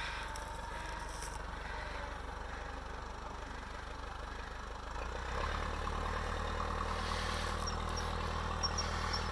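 Tractor engine running steadily, growing louder about five seconds in and holding there.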